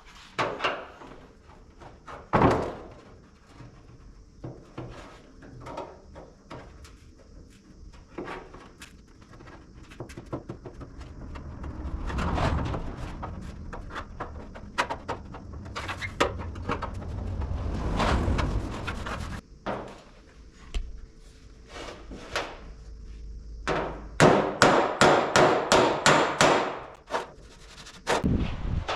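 Hand work on a dented car bonnet: rubbing and scraping with scattered knocks, then a quick run of about a dozen sharp taps, roughly four a second, near the end.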